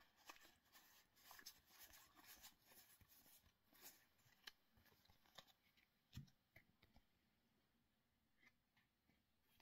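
Near silence with faint rustling and a few soft clicks of trading cards and booster-pack wrappers being handled.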